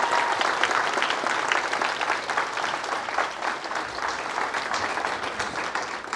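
Congregation clapping and applauding, the applause slowly dying away.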